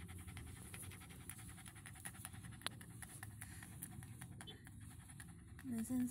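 A small curly-coated dog panting quickly over a low steady rumble. Near the end a woman's drawn-out sung call begins.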